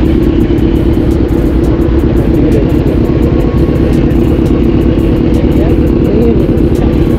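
Kawasaki Z900 inline-four sport bikes idling steadily at a standstill; a loud, even exhaust note with no revving.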